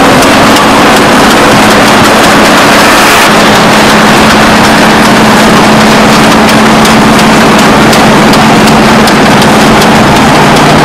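Loud, steady wind and road noise through the open window of a moving 1967 Volkswagen split-screen van, over the steady drone of its air-cooled flat-four engine.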